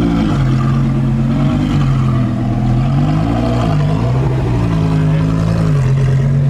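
Lamborghini Gallardo's V10 engine running at low revs as the car creeps along, a steady tone that rises and dips briefly about three seconds in.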